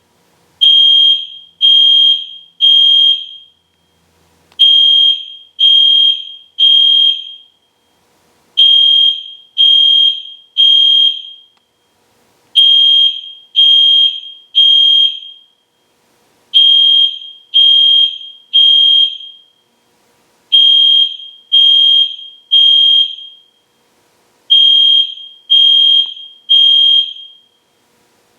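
EST Genesis fire alarm horn sounding the temporal-three evacuation pattern: three high-pitched half-second beeps, then a pause of about a second and a half, repeating every four seconds.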